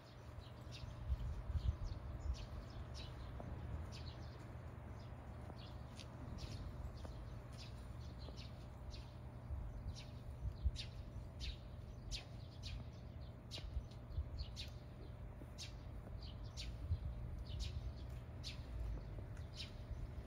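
Small birds chirping in short, high calls, about one or two a second, over a steady low rumble.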